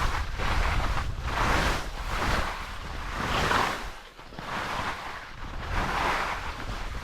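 Skis hissing and scraping across soft spring corn snow in a series of turns, a swell of noise about once a second, over wind rumbling on the microphone.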